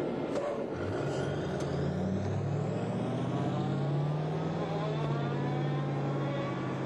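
Fuchs 6x6 armoured reconnaissance vehicle's V8 diesel engine pulling away and driving close past. The engine note strengthens about a second in, then holds steady while its pitch creeps slowly upward.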